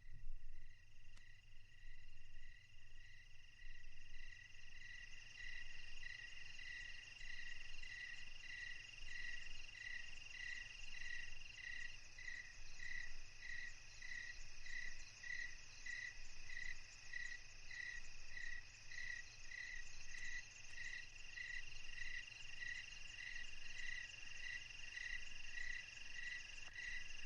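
Chorus of frogs and crickets: a steady high-pitched trill with a regular chirp about twice a second.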